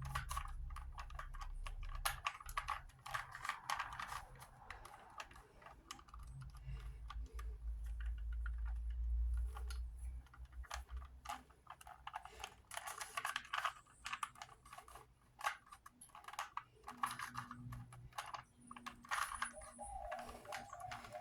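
Plastic Rubik's Cube layers being twisted by hand, a string of irregular quick clicks and clacks.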